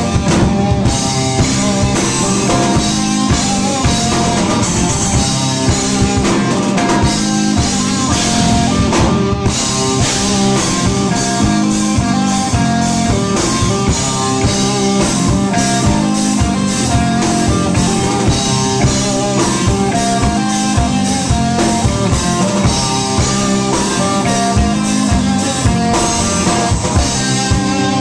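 Instrumental rock played live by a three-piece band: a full drum kit with dense, busy hits under electric bass and guitar.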